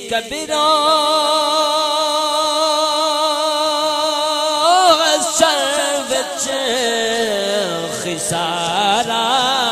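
A man's solo voice holds one long wavering note for about four seconds, then breaks into ornamented turns. This is the drawn-out melismatic singing of a Punjabi naat, heard over a loudspeaker system.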